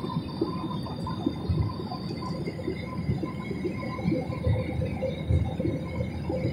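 Jet airliner cabin noise in flight: a steady drone of engines and rushing air, with a few faint steady whines over it.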